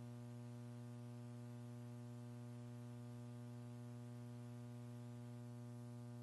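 Steady electrical mains hum on the audio line: one low, unchanging buzz with a stack of evenly spaced overtones, and nothing else.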